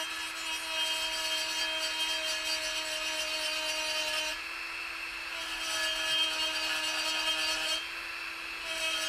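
Small die grinder running steadily with a ball burr, grinding the end of a broken steel exhaust manifold bolt clean in a cylinder head. The grinding hiss eases off twice, about four seconds in and near the end, and each time the motor's pitch rises slightly as the burr lifts off the metal.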